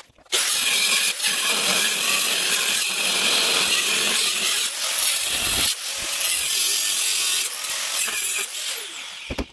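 DeWalt angle grinder with a thin cut-off wheel cutting through a steel pipe stake, a steady, dense grinding noise with a short break a little past halfway.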